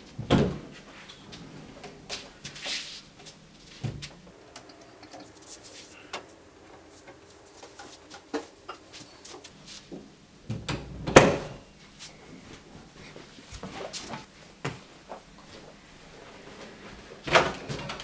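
A few separate knocks and thuds, probably from a door, its handle or someone moving close by. They fall just after the start, about eleven seconds in (the loudest) and near the end, with faint small rustles between them.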